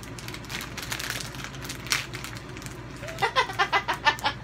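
Plastic snack wrapper crinkling in a series of small crackles as a package is handled. About three seconds in, a person's voice comes in with quick pitched sounds.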